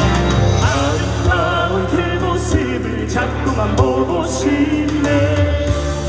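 Live rock band music played loud over a PA: steady drums and bass under a wavering, vibrato-laden melodic line.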